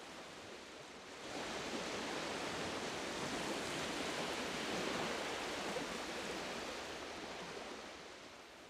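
Sea waves washing onto a pebble beach: a steady rushing wash that swells about a second in and fades out near the end.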